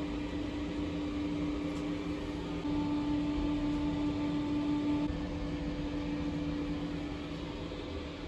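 Steady electrical hum from a running appliance: one fixed low tone with fainter overtones over a faint whirr, a little louder from about two and a half seconds in.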